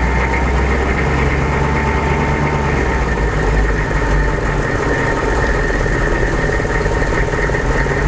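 A 6.5-litre turbo-diesel V8 running steadily at about 1000 RPM with a "wah" kind of whine over it that comes and goes. The owner ties the whine to engine RPM, rules out the steering pump, and suspects something engine related.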